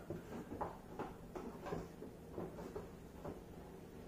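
Plastic disc golf discs clicking and scraping against one another as they are flipped through by hand in a cardboard box: a string of soft, irregular taps.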